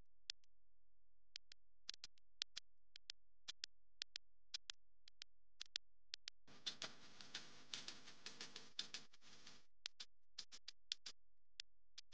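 Hot water poured from a kettle into a ceramic mug for about three seconds, starting around the middle. Scattered sharp clicks sound before and after the pour.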